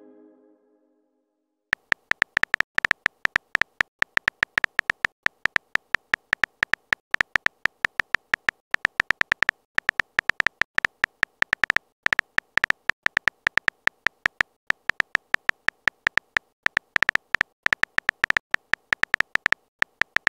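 Texting-story app's keyboard sound effect: a fast, uneven stream of short electronic typing ticks, one per letter typed into the message box, starting about two seconds in.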